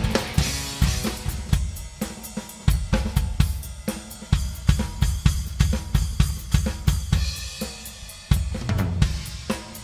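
Rock drum kit played in a fast, busy pattern: snare, toms and bass drum under cymbals and hi-hat, with heavier low drum hits coming in near the start and again about eight seconds in.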